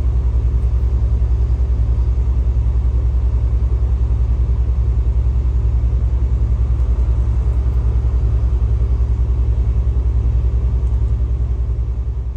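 Vehicle engine running steadily, a low rumble with a fast, even pulse that fades out near the end.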